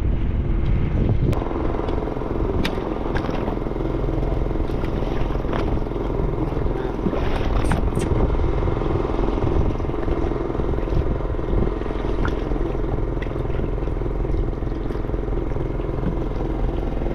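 Engine running steadily aboard a fishing boat, a constant low drone, with a few sharp clicks or knocks over it.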